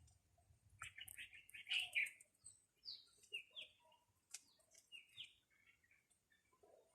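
Birds chirping faintly, a scattered run of short, falling notes.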